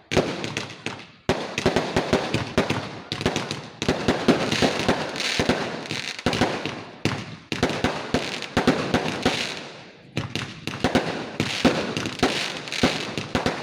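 Fireworks going off in quick succession: a dense, continuous crackle of small bangs, with a fresh volley starting sharply every few seconds and each one trailing off.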